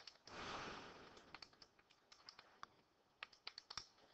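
About a dozen faint, irregular clicks of calculator keys being pressed as the sum is worked out, after a brief soft hiss near the start.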